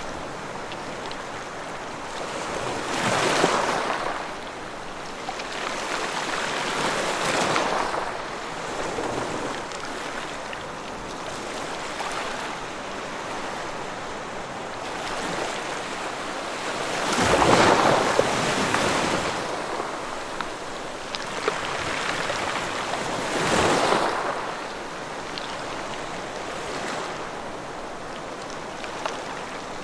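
Ocean waves breaking on a shore over a steady hiss of surf, swelling in four slow surges, the loudest about halfway through.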